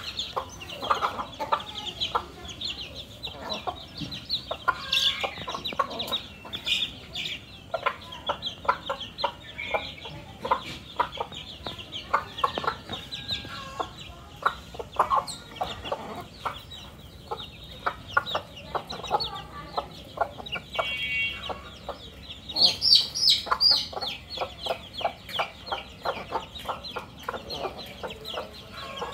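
Hens clucking, a steady stream of short, rapid calls, with a louder, higher-pitched call a little after the middle.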